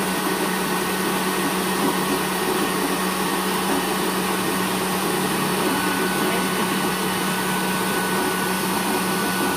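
Electric blender motor running steadily with a small glass grinding jar, grinding home-roasted coffee beans into ground coffee. A steady whirring noise with a constant hum underneath.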